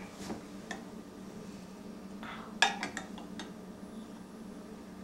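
A plastic quarter-cup measure clinking and knocking against a glass Pyrex measuring jug as water is scooped from it, with a few light clicks, then a short splashy noise and the loudest clink about two and a half seconds in. A steady low hum runs underneath.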